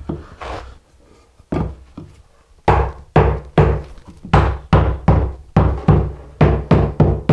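Rubber mallet knocking a 2x4 down into a packed sand-mix (deck mud) shower pan bed to seat it level: dull wooden knocks, a few spaced ones at first, then a steady run of about two to three a second.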